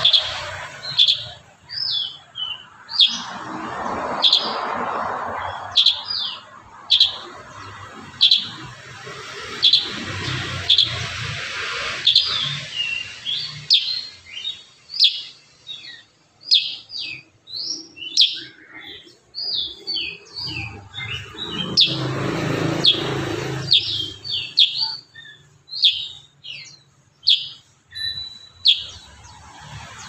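A caged kurincang calling: repeated short, sharp chirps, running into a denser burst of rapid chattering notes in the middle, then back to spaced chirps.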